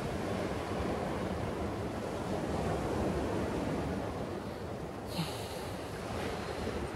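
Ocean surf, a steady wash of breaking waves, with wind buffeting the microphone. A brief sharp click about five seconds in.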